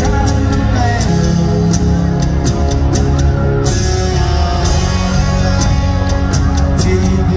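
Live country-rock band playing an instrumental passage: electric guitar over drums, loud and steady, heard from the audience.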